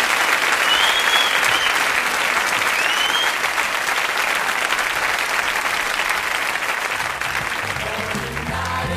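Audience applauding, thinning out gradually, with a few brief calls over it. Music comes in near the end.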